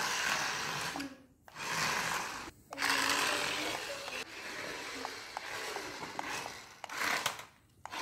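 Small electric motors of a remote-control stunt car whirring as it drives and spins on a hard floor, cutting out briefly three times.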